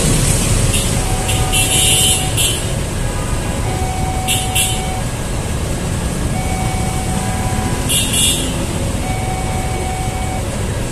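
Railway level crossing warning alarm sounding a repeating electronic ding as a train passes, over the low rumble of waiting motorcycle and car engines. Three short, high hissing noises cut in, about one and a half, four and eight seconds in.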